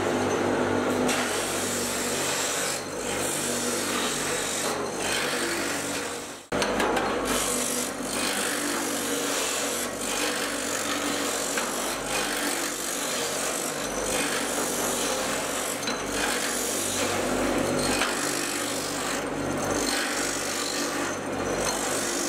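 Brake-shoe lining grinding machine running, rasping steadily as motorcycle brake shoes are fed through on its chain feed and their friction linings are ground down. The noise drops out briefly about six seconds in, then carries on.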